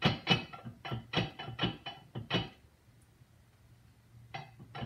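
Steel parts of a Dake tabletop hydraulic press clinking and knocking against each other as its loose, wiggly table is worked in the frame. A quick run of clinks for about two and a half seconds, a pause, then a few more clicks near the end.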